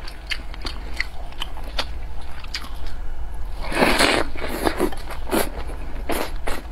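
Close-miked eating sounds of a person chewing sauced fried egg and rice: a run of short wet mouth clicks and smacks, with one louder, longer bite about four seconds in as a chopstick-load goes into the mouth.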